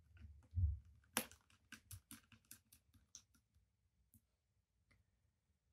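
Faint small clicks and taps of a precision screwdriver and tiny screws being fitted into a laptop's screen assembly: a low thump under a second in, a sharper click, then a quick run of light clicks about five a second, thinning out to a few ticks.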